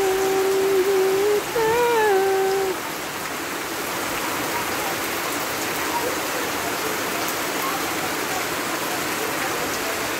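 Steady rain falling on corrugated metal roofs and a wet yard, an even hiss throughout. In the first few seconds a voice hums a few held notes over it, the last one bending up and back down.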